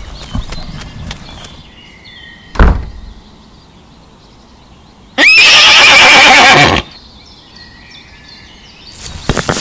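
A horse whinnies once, loud and quavering, about a second and a half long, just past the middle. A short thump comes a few seconds earlier.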